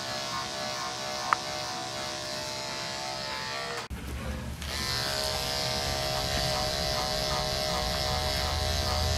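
Andis AGC two-speed electric dog clipper buzzing steadily as it shaves through a dog's thick coat. There is one sharp click a little over a second in. The buzz breaks off briefly about four seconds in, then comes back louder and deeper.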